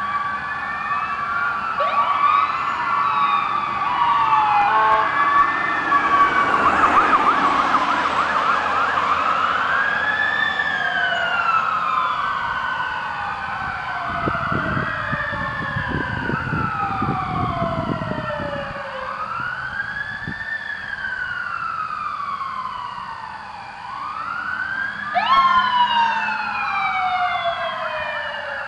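Several sirens on fire and rescue trucks wailing at once, each sweeping up quickly and falling slowly every few seconds. A low rumble runs underneath for a few seconds in the middle, and a fresh, louder siren sweep starts near the end.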